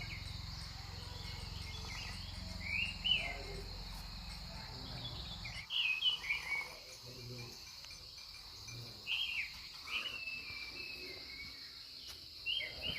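Steady high-pitched insect chorus, typical of crickets, with short bird calls breaking in several times. A low rumble under it stops about five and a half seconds in.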